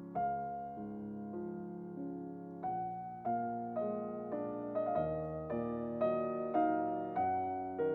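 Background music: a soft piano melody with chords, the notes struck in a gentle, steady rhythm.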